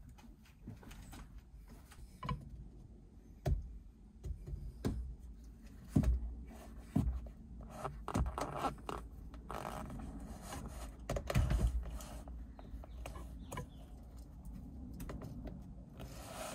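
Scattered clicks, knocks and scrapes of a ratchet and hex socket working on a steering wheel's very tight center bolt, with a few sharper clunks.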